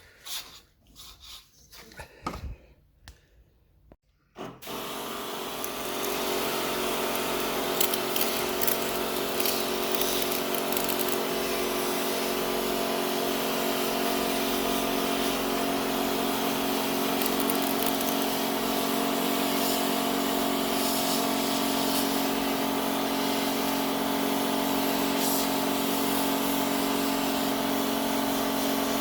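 An electric motor-driven machine starts up about four and a half seconds in, swells over about a second and then runs steadily with a humming tone and a hiss, after a few light knocks.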